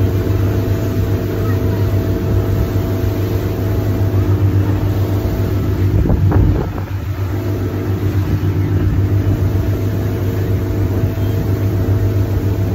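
Motorboat engine running steadily under way, a constant low drone. A brief knock or thump about halfway through.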